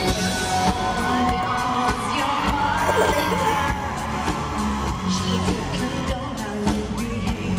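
Background pop music with singing.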